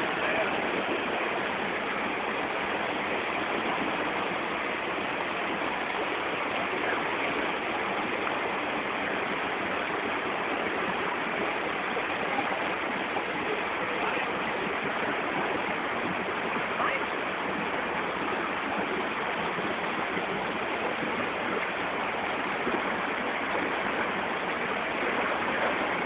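Waterfall pouring: a steady, even rush of falling water that does not change in level.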